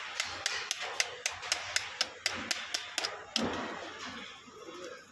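Rapid, evenly spaced sharp taps, about four a second, that stop about three and a half seconds in.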